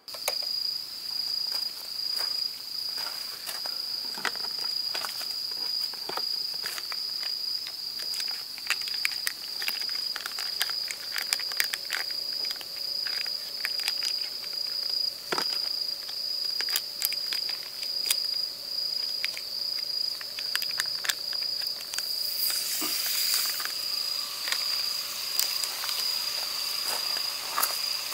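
Crickets chirring in one steady high tone, over scattered clicks and rustles of food being handled at a portable gas stove. About 22 seconds in, a dense sizzle starts as marinated webfoot octopus goes onto the hot griddle.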